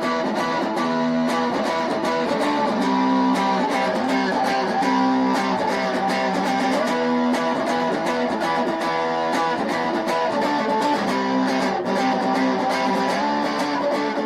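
Electric guitar played through a small Fender-style combo amp with its distortion on and the tone switch set to rhythm: distorted chords and riffs with many sharp picked attacks.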